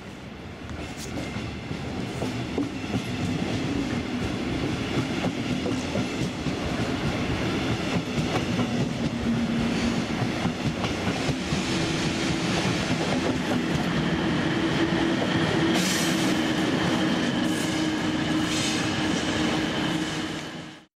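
Double-deck regional passenger train rolling past slowly along the platform, its wheels clattering over rail joints and points with high squealing and a steady low hum underneath. The sound swells as the carriages pass and cuts off suddenly near the end.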